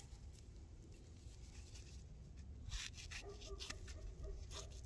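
Faint, soft scratching of a knife cutting trim off an elk rib roast, a few light scrapes and clicks, mostly in the second half.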